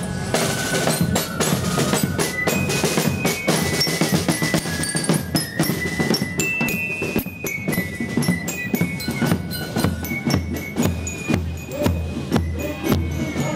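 A marching drum and fife corps playing: snare drums and a bass drum beating a steady march rhythm, with fifes playing a high melody over them.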